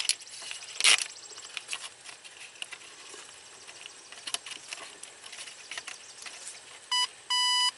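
Hands handling a plastic wiring loom and harness, with crackling rustles and sharp clicks, the loudest at the very start and about a second in. Near the end an electronic short/open circuit locator beeps twice, a short beep and then a longer one, as it is worked along the harness to find a broken wire.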